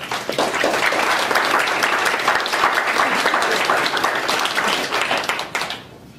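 Audience applauding: dense clapping that starts right away, holds steady for about five seconds and dies away near the end.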